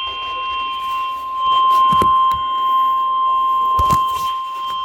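NOAA Weather Radio's 1050 Hz warning alarm tone: one steady, unbroken beep announcing the weather alert that follows, heard from a receiver's speaker in a small room. Two soft knocks come about two and four seconds in.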